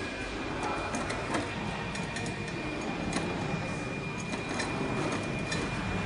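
Scattered light clicks and taps as a metal fixing bracket and its screws are handled against a chiller's sheet-metal cabinet. Behind them runs a steady background machine noise with a faint high whine.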